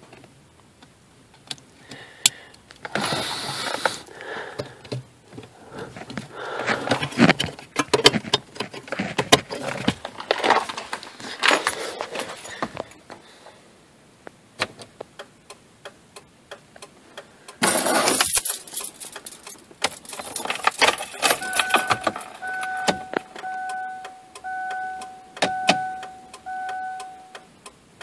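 Handling rustles and clicks as a flasher relay is pushed into its socket under a car's dashboard. About two-thirds of the way through, keys jangle. After that a car's electronic warning tone beeps in a steady run of short beats over light clicking, with the ignition on.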